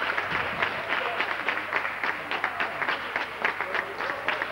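Audience applauding, many hands clapping in a dense, irregular patter, with a few voices calling out in the crowd.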